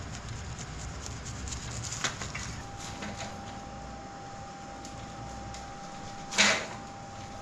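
Cooking pots and utensils being handled: light clinks, a sharp knock about two seconds in and a louder clatter about six seconds in, over a low steady rumble.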